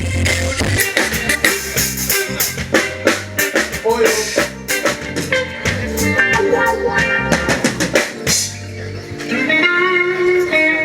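Live band music: a drum kit playing busy hits and fills over guitar. About eight and a half seconds in the drums stop, and guitar notes carry on ringing.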